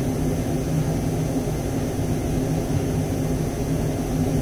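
Steady low drone of a motor running, with an even hum and no change in level.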